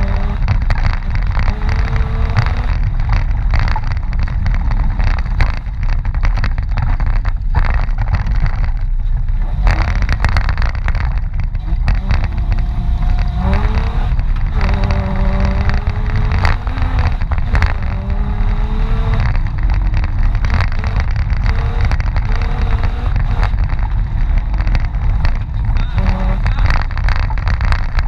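Mitsubishi Pajero off-road vehicle's engine running, a continuous heavy low rumble.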